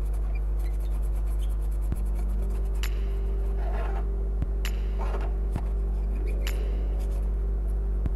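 A brush scrubbing a circuit board clean, in two short scratchy strokes about three and a half and five seconds in, with a few light clicks, over a steady low electrical hum.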